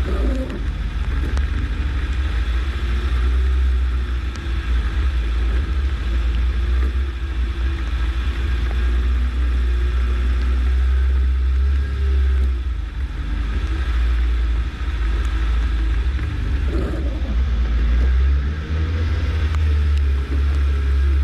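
The 1987 Suzuki SJ413's engine running as it drives off-road, with heavy low rumble and an engine note that rises and falls with the revs.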